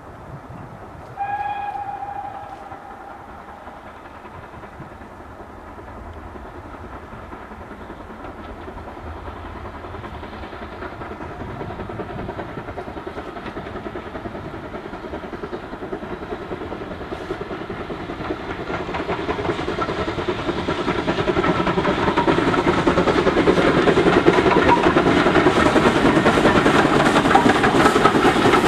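BR Standard Class 4 2-6-4 tank steam locomotive giving one short whistle blast about a second in, then its working exhaust and the rumble of its coaches on the rails growing steadily louder as the train approaches and passes.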